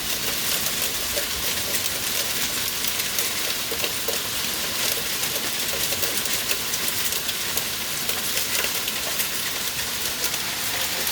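Hail pelting down steadily: a dense, even patter of many small ticking impacts.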